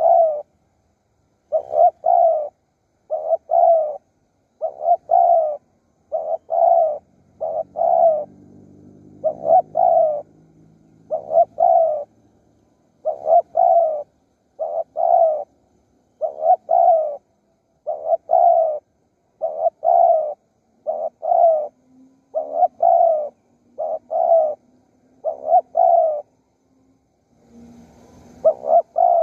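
Spotted dove cooing in a steady run of short coos, mostly in pairs about every second and a half. A faint low hum sits underneath for a few seconds near the middle.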